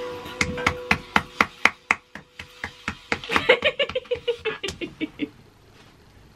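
Hand clapping, a short run of sharp claps about four a second, with laughter joining about three seconds in and trailing off, then quiet near the end.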